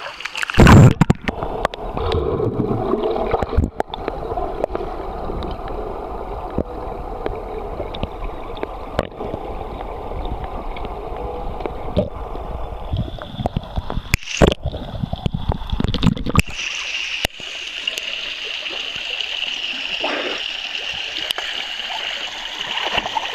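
A loud splash into a rock pool about a second in, then muffled, rumbling water noise, as heard with the microphone under the water. From about two-thirds of the way through, the steady patter of a small waterfall's drips and trickles falling onto the pool surface.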